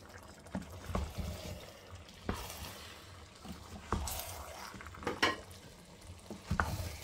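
A wooden spatula stirring wet, simmering jollof rice in a stainless steel pot, with a few sharp knocks of the spatula against the pot.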